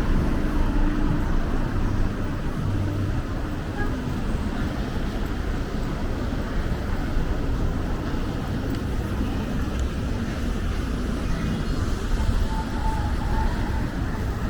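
Steady city street ambience dominated by the low rumble of road traffic.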